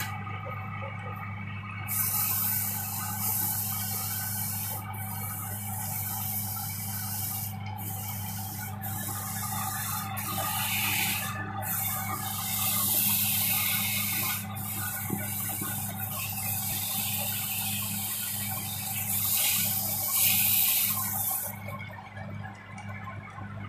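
Small belt-driven wood lathe with an electric motor humming steadily while sandpaper is held against the spinning wooden spindle. This gives a loud hiss that starts about two seconds in, comes in stretches with short breaks, and stops a couple of seconds before the end.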